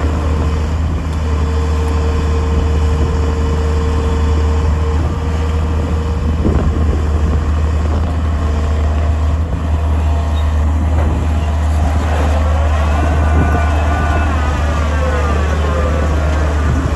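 Heavy construction machine's diesel engine running steadily with a deep, constant hum. Over the last few seconds a higher whine rises and falls above it.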